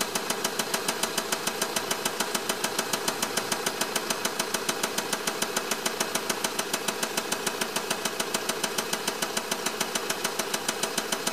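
Honda Accord's 2.2 i-CTDi four-cylinder common-rail turbodiesel idling steadily, with an even, rhythmic diesel clatter.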